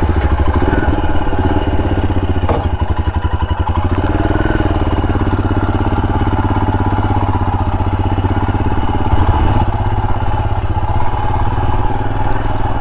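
Royal Enfield Himalayan's 411 cc single-cylinder engine running steadily as the motorcycle is ridden, an even, rapid beat of firing pulses.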